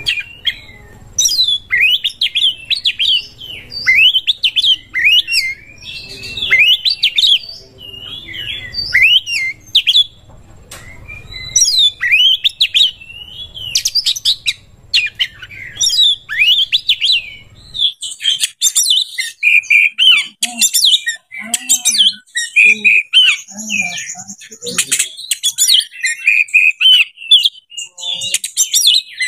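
Oriental magpie-robin (kacer) singing loudly: a fast, varied run of whistled phrases and chirps, the full song of a male in breeding condition (birahi). About 18 s in, a low background hum drops out and the song turns to higher, faster trills.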